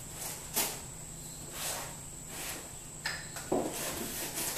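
Cardboard shipping box being slit and opened by hand: a series of short, scratchy rasps of packing tape and cardboard.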